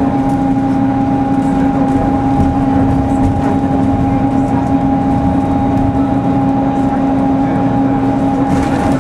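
Steady drone inside a Mercedes-Benz OC500LE city bus under way: a constant two-tone hum over the even rumble of engine and road.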